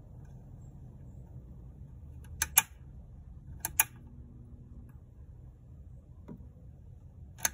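Toggle switch on a preheat fluorescent under-cabinet light fixture snapping three times, each a sharp double click, turning the lamp off and on.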